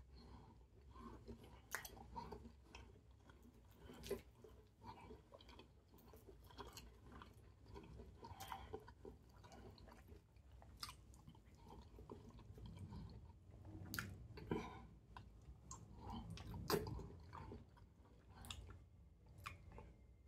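A man chewing a mouthful of goat meat and fish with okra soup, eaten by hand, at close range. Scattered sharp clicks sound throughout, a couple of them louder in the second half.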